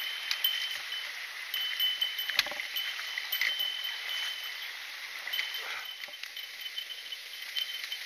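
Shallow mountain stream running over rocks and small cascades, a steady rush of water.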